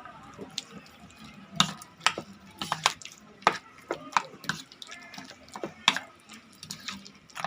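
Squid pieces being mixed with flour by hand in a bowl: irregular wet squishing and light clicks.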